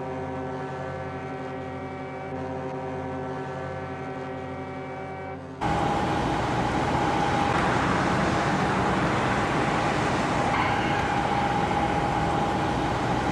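A ship's horn sounds one long, steady blast with a rich, many-toned note. About five and a half seconds in it cuts abruptly to a louder ship's whistle: a single high note over heavy hiss.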